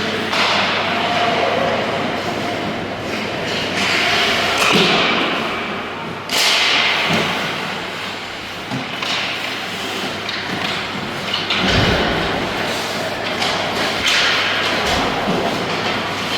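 Youth game play echoing in a large indoor hall: a steady wash of play noise broken by thumps, with a sharp bang about six seconds in and heavy low thuds near twelve and fifteen seconds.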